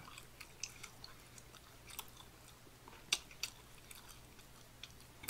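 Faint chewing of food with a few sharp mouth clicks, the loudest about three seconds in, over a low steady hum.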